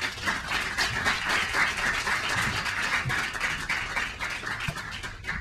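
Audience applauding, a dense patter of many hands clapping that tails off near the end.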